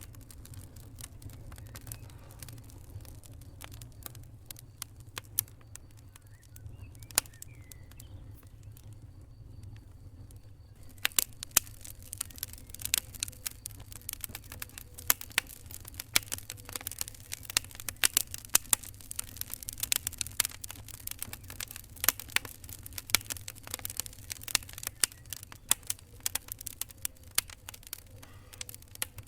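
Fire crackling over a low steady rumble, with scattered pops at first. About eleven seconds in it turns to dense, rapid crackling.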